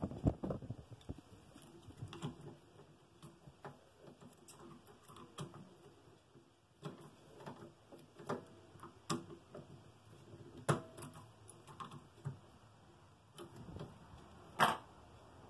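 Scattered light clicks, taps and rubbing from hands fitting a coarse sanding sleeve onto an inflatable drum sander held in a drill press chuck, with the drill press not running. The sharpest click comes near the end.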